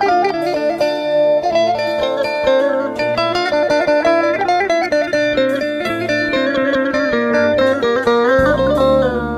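Turkish instrumental ringtone music: a plucked string instrument plays a quick melody with bent notes over held low tones. A deep bass note slides in about eight seconds in.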